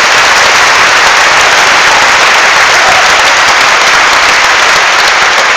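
A large indoor crowd applauding loudly and steadily, a dense wash of clapping with a few cheers mixed in.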